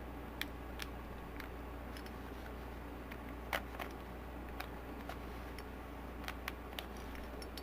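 Plastic Rubik's cube layers being twisted by hand, giving a dozen or so irregular sharp clicks, the loudest about three and a half seconds in.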